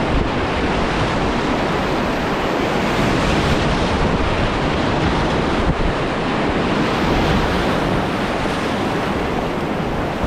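River whitewater rushing loudly all around a kayak running a rapid, picked up close to the water, with steady buffeting on the microphone.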